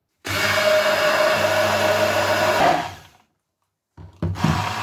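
Braun 600 Watt turbo immersion blender running steadily in a narrow beaker, whipping oil, vinegar and mustard into a thick emulsified dressing. It runs for about three seconds, winds down and stops, then starts up again near the end.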